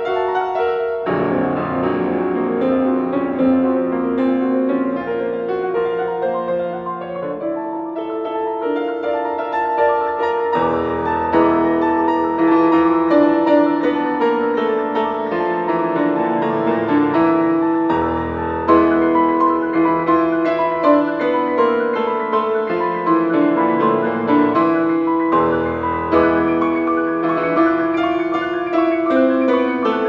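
Solo piano playing a dense, flowing passage of overlapping notes, with deep bass notes entering a little over ten seconds in and again about two thirds and five sixths of the way through. It grows somewhat louder after the first bass entry.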